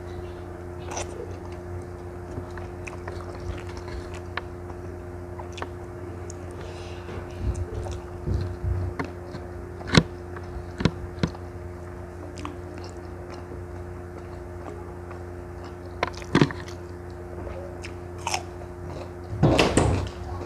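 Close-miked mouth sounds of eating rice and squid by hand: wet chewing with scattered sharp smacks and clicks, one loud smack about halfway through, and a denser crunchy stretch shortly before the end as raw cucumber is bitten. A steady low hum runs underneath.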